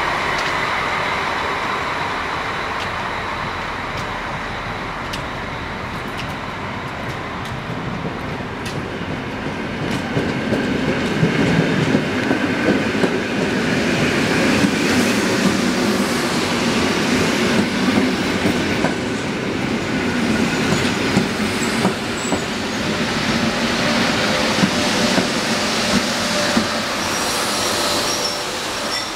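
Two coupled EN57 electric multiple units pulling in along the platform, wheels clacking over the rail joints. It gets louder about ten seconds in as the cars pass close by, and a thin high wheel squeal comes in near the end.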